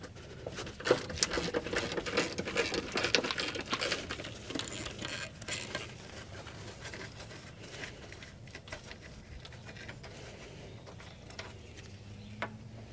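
Gloved hands working on a semi truck's rear suspension air bag and its metal mounts: irregular rustling, scraping and light clicks, busiest in the first half and sparser after.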